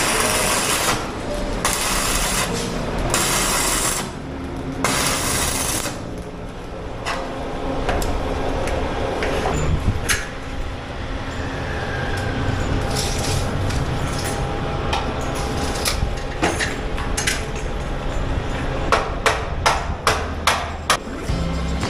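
Tool work on a steel window frame: several roughly one-second bursts of hissing noise near the start, then a quick run of sharp hammer knocks near the end.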